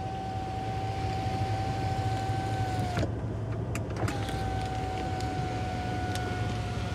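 Electric motor of the Maybach 62 S's power rear privacy curtains whining steadily as the curtains close, stopping with a click about three seconds in. It starts whining again about a second later as the curtains reopen.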